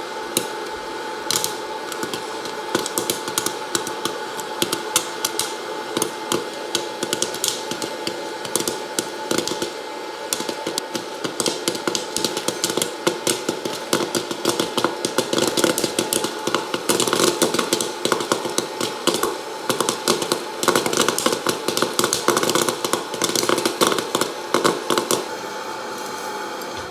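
Popcorn kernels popping over a steady hum. The pops grow faster and denser toward the middle and stop about two seconds before the end, leaving only the hum.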